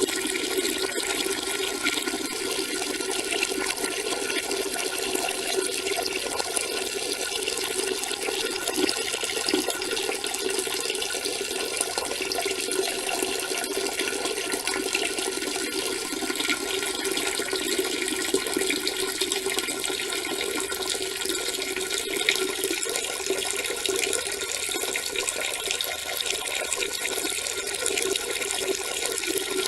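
A stream of urine splashing, steady and unbroken, with no let-up or change in strength.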